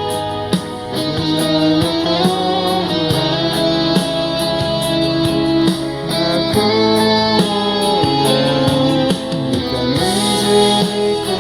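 Music: a guitar-led instrumental passage of a song, with no singing, over sustained backing notes.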